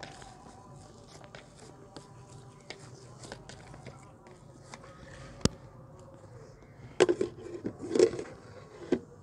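Hands pressing down risen yeast dough in a plastic bowl: faint soft handling with small ticks and a sharp click about halfway. Near the end come a few louder knocks and rustles as the bowl and a cloth are handled.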